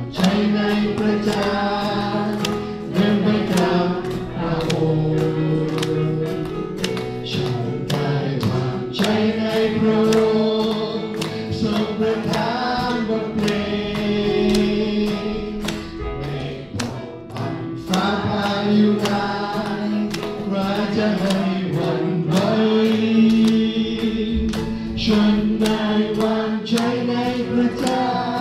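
Thai congregational worship song sung by several voices, with acoustic guitar strumming and hand clapping on a steady beat of about two a second.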